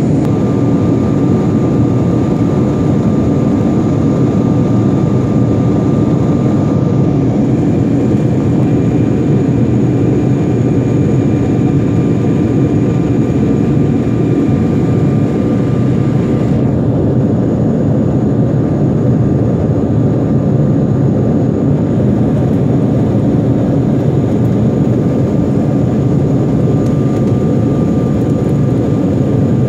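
Jet airliner cabin noise from a window seat: a loud, steady low rush of engines and airflow, with a faint steady whine above it.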